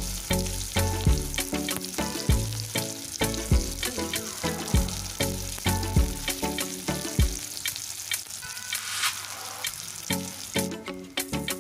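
Sliced onions, bay leaves and dried red chillies sizzling in hot oil in a wok, under background music with a steady beat that drops out briefly near the end.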